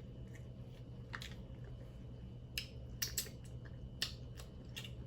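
Seafood shells being cracked and snapped open by hand to eat, a handful of short, sharp cracks spread over a few seconds.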